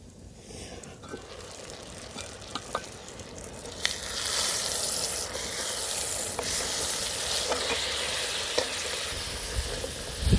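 Cabbage and a fish and egg mixture sizzling and simmering in a metal pot over a wood fire. A wooden spatula stirs and taps against the pot. The hiss starts about four seconds in and holds steady, with scattered sharp ticks from the spatula.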